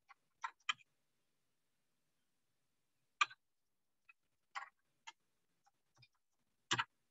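Scattered keystrokes and clicks on a computer keyboard and mouse: about eight short separate clicks, a quick pair near the start, the loudest a little over three seconds in and near the end, with silence between.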